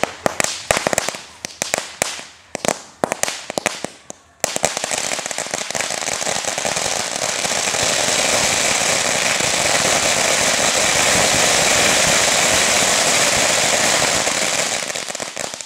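A pile of firecrackers going off. First come scattered sharp bangs for about four seconds. Then the pile breaks into a dense, continuous rapid-fire crackle of bangs for about eleven seconds, easing slightly near the end.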